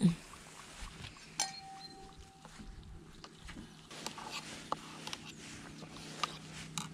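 Metal camp cookware clinking: a spoon and steel mugs knocking together, one clink about a second and a half in ringing on briefly, with a few lighter clicks after. A short low sound at the very start is the loudest thing.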